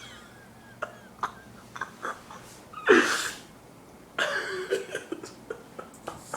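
A man snoring in his sleep: one loud, sudden snort about three seconds in, then a longer rasping snore a second later, with small clicks of breath and mouth between.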